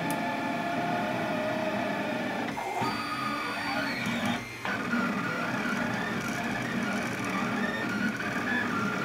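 Anycubic Kossel delta 3D printer printing, its stepper motors running in several tones that shift as the effector moves. The sound briefly drops off about four and a half seconds in.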